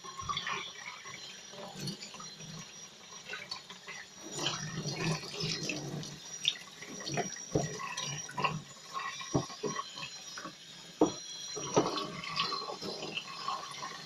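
Water running from a hose sprayer on the tap into a laundry tub as a small dog is rinsed and rubbed by hand, with uneven splashing and a few short knocks and slaps.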